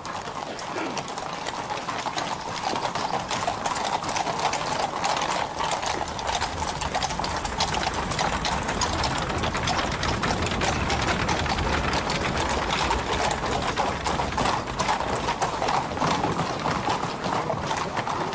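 Horses' hooves clopping on stone paving in a steady, dense run of hoofbeats as a horse-drawn chariot passes.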